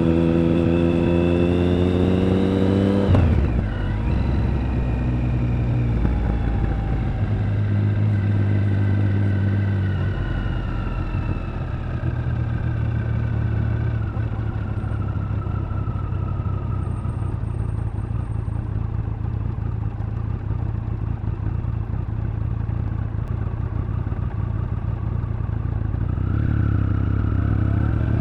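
Triumph Speed Triple 1050 inline three-cylinder motorcycle engine and exhaust accelerating with a rising note. The throttle closes abruptly about three seconds in. The engine then runs at a steady low note for most of the time and starts rising again near the end.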